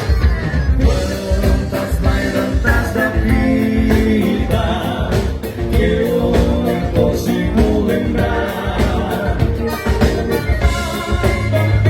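Live gaúcho dance-band music with a steady beat, the band playing on through a fandango number.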